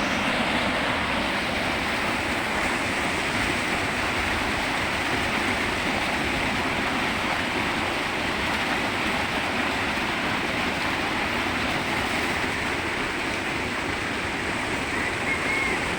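Steady rush of a fast-flowing, flood-swollen river.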